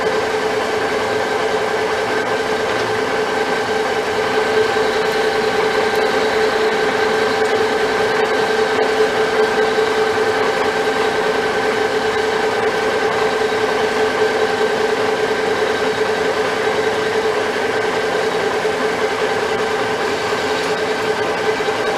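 Metal lathe running steadily under power, its motor and gearing giving a steady whine over a mechanical rumble as the chuck spins the steel workpiece.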